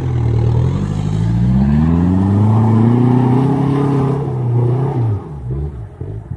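Off-road 4x4 engine revving up, its pitch climbing steadily for about three seconds, then dropping back about four to five seconds in.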